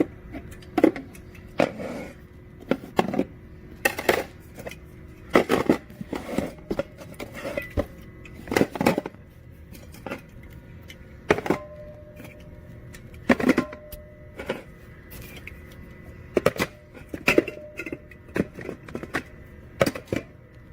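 Irregular knocks, clicks and scrapes of objects being handled, over a faint steady hum.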